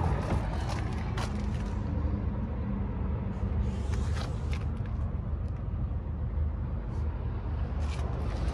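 Steady low rumble of background noise, with a few faint knocks.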